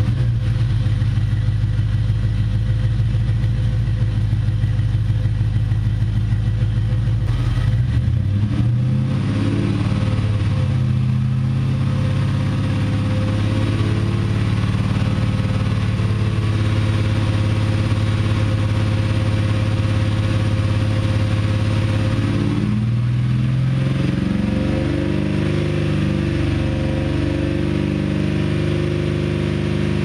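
2004 Jeep Grand Cherokee's 4.7-litre V8 running through a Flowmaster 70 Series muffler, heard at the tailpipe. It idles at first, then is brought up to a steady 2000 RPM about nine seconds in. About three-quarters of the way through it is raised again to a higher steady speed.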